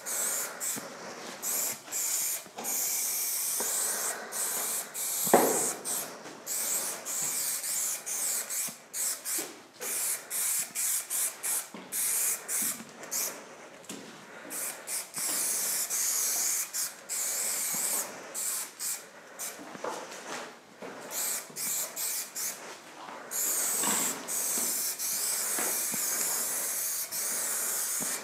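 Aerosol spray-paint cans hissing in repeated bursts as graffiti is sprayed: quick short spurts in the middle, longer steady strokes later. A single sharp clack about five seconds in is the loudest sound.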